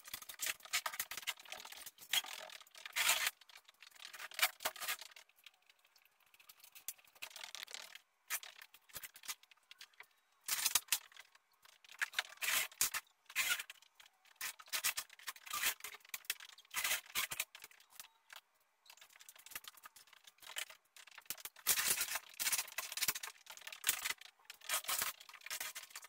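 Irregular clattering, scraping and rubbing of objects being handled and moved about, coming in bursts with short pauses.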